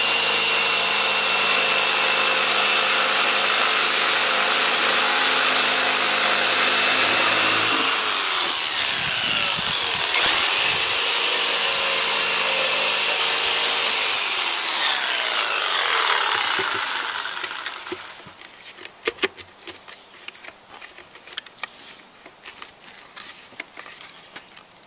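Jigsaw cutting OSB board, trimming the edges of a round hole cut for a sink. It runs steadily for about eight seconds, winds down briefly, then runs again and dies away a few seconds past the middle. Light scattered clicks and knocks follow as the plastic bucket is set into the hole.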